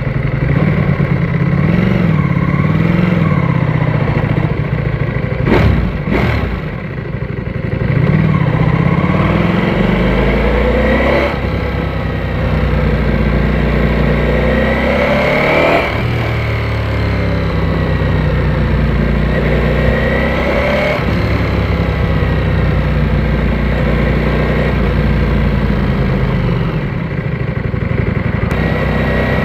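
Ducati Panigale V4S's V4 engine under way, its revs rising and falling as the bike accelerates and shifts. There is a brief dip with a clatter early on, then a couple of long climbs in revs near the middle before it settles to a steadier run.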